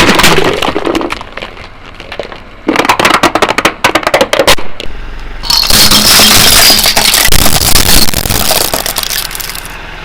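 Loud cracking and crunching of brittle objects being crushed, most likely under a car's tyre: a sudden burst of sharp cracks, a denser run of snapping about three seconds in, then about four seconds of continuous crunching that stops near the end.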